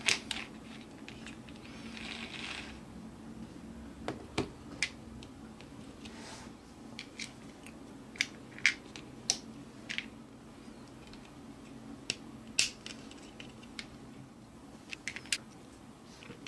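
Plastic building bricks clicking and snapping together as pieces of a small toy helicopter are pressed on and handled: sharp, short clicks at irregular intervals over a faint steady low hum.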